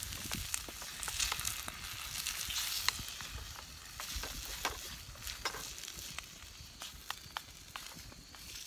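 Eggs and roast beef sizzling in a skillet over a campfire as a spatula stirs them, with scattered sharp clicks. The sizzle is strongest for the first three seconds and eases after that.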